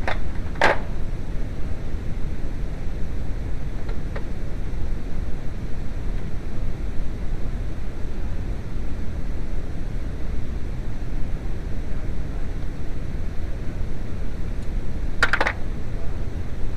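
Two short metallic clinks, one about a second in and one near the end, over a steady low rumbling noise.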